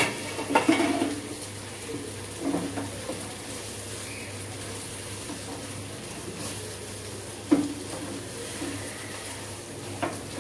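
Wooden spatula stirring and scraping a mashed-potato and onion filling in a nonstick frying pan, with a few sharp knocks against the pan over a low, steady sizzle of frying.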